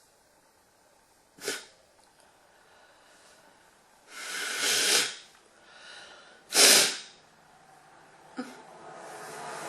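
A person sneezing. There is a short sharp breath about a second and a half in, then a longer noisy swell of breath around four to five seconds, then one loud, abrupt sneeze just before seven seconds in. A softer, rising breathy hiss follows near the end.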